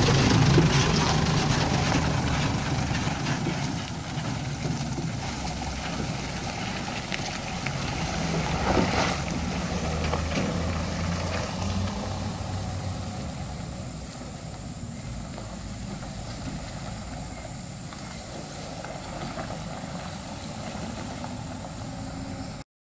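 Diesel engine of a loaded light dump truck pulling away along a dirt track, loudest as it passes close by and fading steadily as it drives off into the distance. The sound cuts off suddenly near the end.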